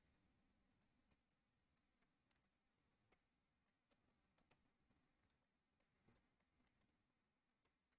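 Near silence broken by over a dozen faint, sharp computer mouse clicks at irregular intervals, as nodes are selected and dragged in the editor.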